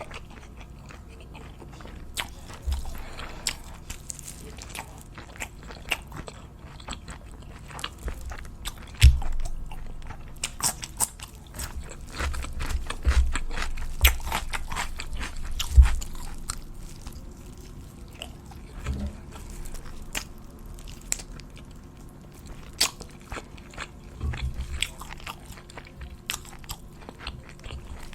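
A person biting and chewing crunchy food close to the microphone, with irregular crisp crunches throughout and a few low thumps.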